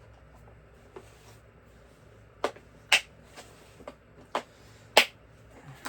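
Sharp clicks and taps of a screwdriver set's bits and parts being handled and fitted, about seven or eight at irregular intervals, the loudest about three and five seconds in.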